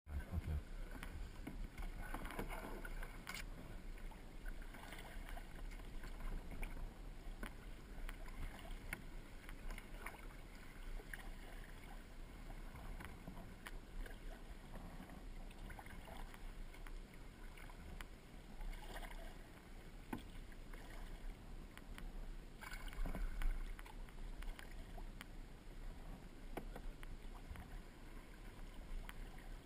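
Kayak paddle strokes dipping and splashing in water, recurring about every two to three seconds over a steady low rumble.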